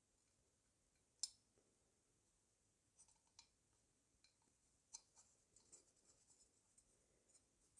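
Faint clicks and light ticks of small metal carburetor parts, the pump check strainer and its plug, being handled and set into the carburetor body: one sharper click about a second in, then scattered soft ticks.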